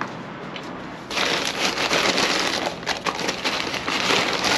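Plastic bag rustling and crinkling loudly as it is handled, starting about a second in, full of sharp crackly clicks.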